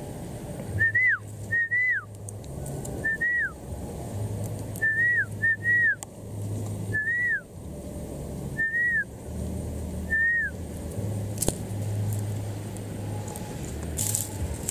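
About ten short whistled notes, singly or in pairs roughly a second apart, each rising a little then sliding down in pitch. They stop about ten and a half seconds in.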